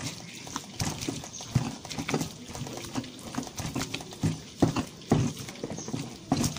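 Stone pestle (ulekan) grinding cooked chilli sambal in a stone cobek mortar: irregular knocks and scrapes of stone on stone through the wet paste, about two a second.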